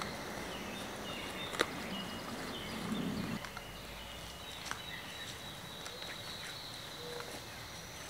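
Spring woodland dawn chorus: several songbirds singing at once in thin, high phrases, with footsteps through dry leaf litter and a couple of sharp ticks.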